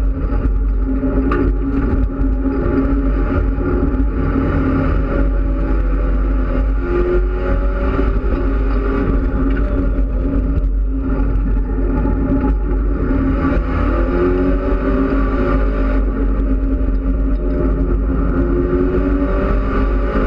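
Mitsubishi Lancer Evolution X race car's turbocharged four-cylinder engine at racing speed, heard from inside the stripped cockpit over steady road and wind noise. The engine note climbs in pitch several times as it accelerates out of corners.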